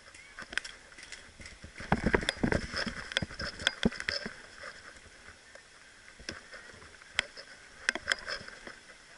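Paintball markers firing across the field: scattered, irregular sharp pops. A stretch of rough rustling and handling noise runs from about two to four seconds in.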